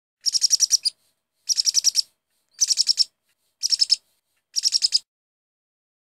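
Bird chirping in five short, evenly spaced bursts, each a quick run of about seven high chirps.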